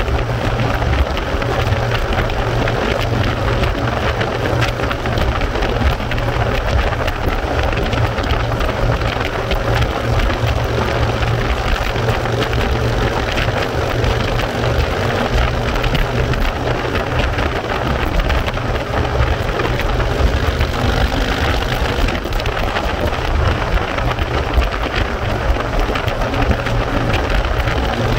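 Steady rush of wind on the microphone and road noise from a vehicle moving at speed, with a deep rumble underneath.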